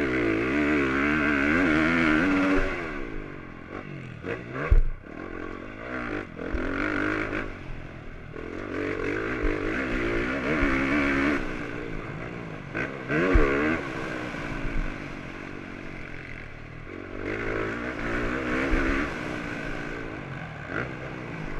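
Onboard sound of a motocross bike's engine revving hard through the gears, its pitch climbing and dropping with each shift and falling off several times as the throttle is closed. A few sharp thumps break in, the loudest about five seconds in and again near the middle.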